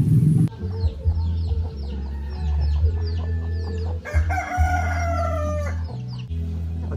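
Chickens calling: a run of short, high, falling peeps, and one long call about four seconds in, over a steady low hum.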